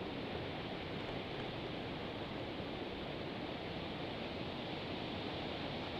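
Steady, even rushing noise of wind and flowing creek water, with no gusts, breaks or distinct events.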